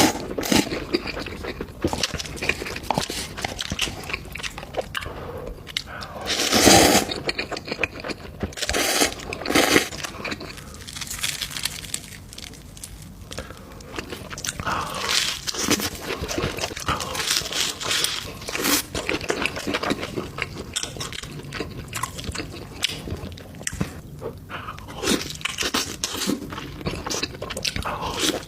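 A person biting into and chewing crunchy food, a steady run of crackling crunches, with a louder bite about seven seconds in.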